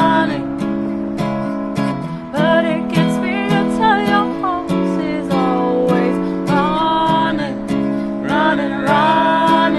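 Acoustic guitar strummed in a steady rhythm, with a voice singing long held notes without clear words over it.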